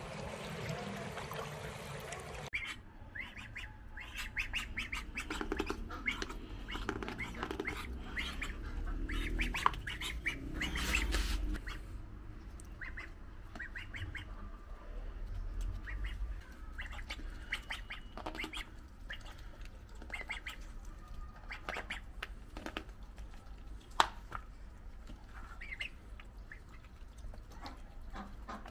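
White domestic duck quacking in short calls, with quick clicks and taps as its bill pecks at tomato pieces held in a hand.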